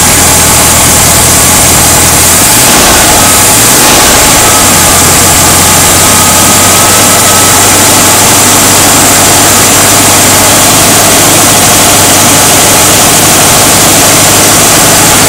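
Freshly rebuilt VW 1600cc single-port air-cooled flat-four idling, heard up close in the engine bay. About three seconds in, the engine speed rises a little and then holds at a slightly faster steady idle.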